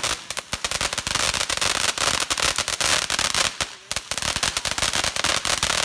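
Firecrackers going off in a rapid, unbroken string of sharp cracks, many per second, with a brief lull a little before four seconds in.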